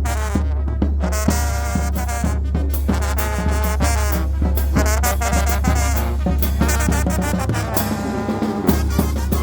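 Traditional Mixtec village brass band playing a lively dance tune: brass and saxophones over a steady drum beat.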